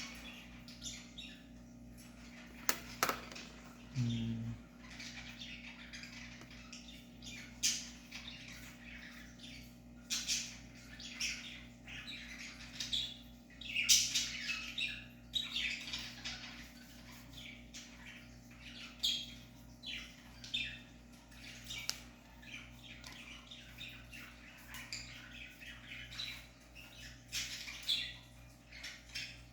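Irregular short, squeaky rubbing strokes of a glass-cleaner-dampened puff scrubbing the inside of an opened car key fob, over a faint steady hum.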